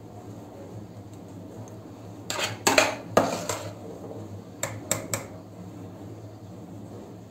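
Metal spoon clinking and scraping against a stainless steel bowl while scooping out thick custard cream: a few sharp clinks about two seconds in and another few about five seconds in.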